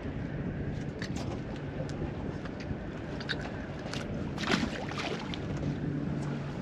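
Wind buffeting the microphone aboard a boat, with a low steady hum underneath and a few short sharp knocks, the loudest about four and a half seconds in.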